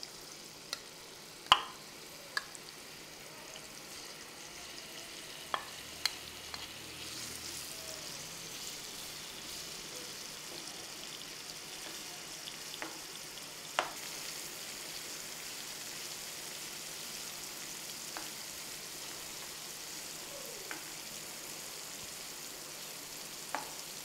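Paneer cubes sizzling in hot oil in a pan, turned with a slotted steel spatula that clicks against the pan a few times, the loudest click about a second and a half in.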